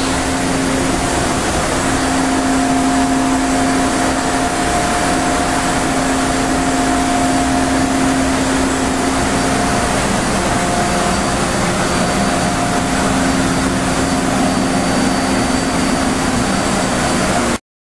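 Thermwood CNC router's spindle running at steady speed with a constant hum and a high whine over a loud, even rushing noise. The sound cuts off suddenly near the end.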